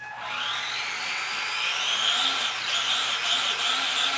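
Feiyue FY-10 RC monster truck's electric motor and drivetrain whining under throttle with the wheels spinning free off the ground. The whine starts suddenly, climbs in pitch for about two seconds, then rises and falls as the throttle is worked.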